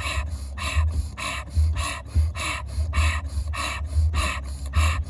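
Fast, forceful breathing in a quick, even rhythm of about two breaths a second, breath-of-fire style, over low background music.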